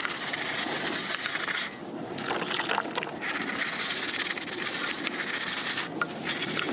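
Stiff-bristled brush scrubbing a soapy rubber tire sidewall: a steady scratchy rubbing, broken by a few brief pauses between strokes.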